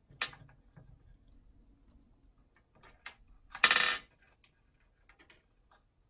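An Amazon parrot knocking and clattering the wooden blocks of its ladder toy with its beak: sharp clicks and knocks, a sharp one right at the start and a much louder clatter of about half a second some three and a half seconds in, then a few faint ticks.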